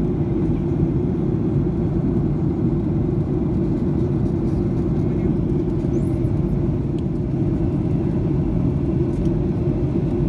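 Steady low roar of a jet airliner's cabin in flight: engine and airflow noise heard from a seat by the wing.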